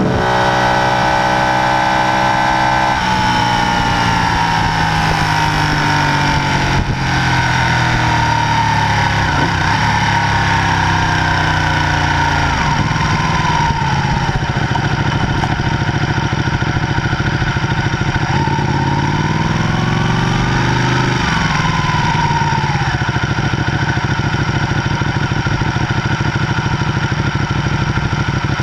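Ducati Panigale 899's Superquadro V-twin engine heard from onboard as the bike slows. The engine note steps down and falls away as it decelerates, rises and falls once briefly about twenty seconds in, and then runs low and steady at low speed near the end.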